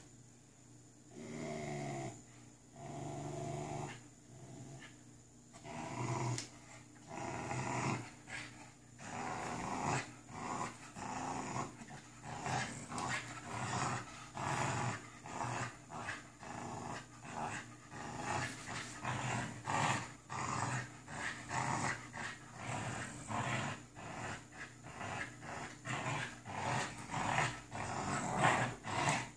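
American Bully puppy growling in play during tug-of-war, in short repeated growls that come quicker and louder after about six seconds.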